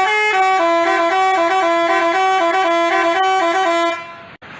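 Basuri telolet bus horn playing a quick, stepping multi-tone melody. It cuts off just before four seconds in, leaving a fainter noise.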